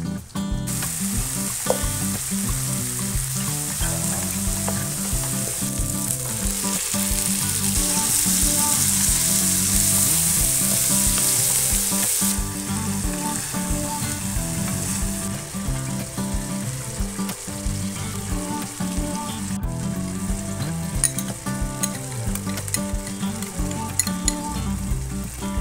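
Chopped chilli-and-shallot spice paste, then beef pieces, frying in hot oil in a wok with steady sizzling, stirred with a wooden spatula. The sizzle grows louder about a quarter of the way in and eases off around the middle.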